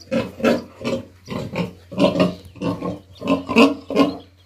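Domestic pig grunting: a quick, even run of short grunts, about three a second.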